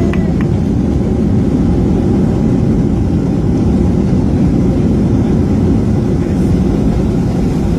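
Steady low rumble of an airliner heard from inside the passenger cabin: engine and airflow noise, even and unchanging.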